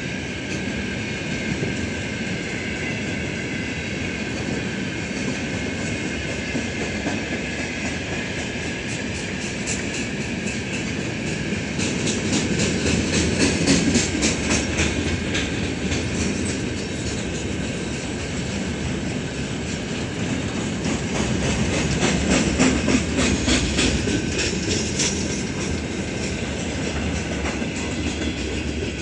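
Freight train of open gondola wagons rolling past over a low concrete bridge: a steady rumble, with wheels clattering over rail joints in rapid runs of clicks that grow louder in two stretches, about halfway through and again a few seconds later.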